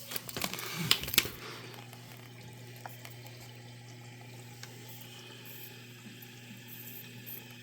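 Frigidaire dishwasher filling with water through its water inlet valve: a steady, quiet rush of water with a constant low hum. A few knocks in the first second or so.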